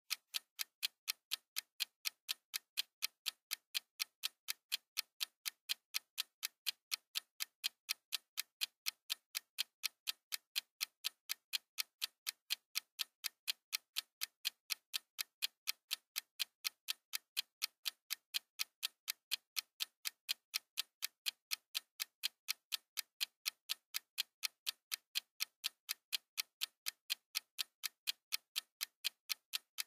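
Mechanical oven countdown timer ticking: dry, evenly spaced ticks, about three a second, as it counts down.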